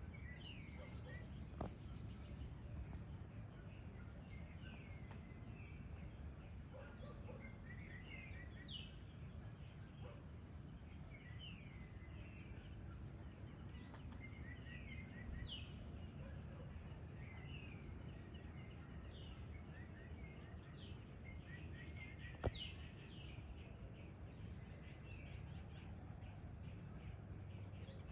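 Evening outdoor ambience: birds calling with short, falling chirps every second or two over a steady high-pitched insect drone and a low background rumble. A single sharp click sounds about three-quarters of the way through.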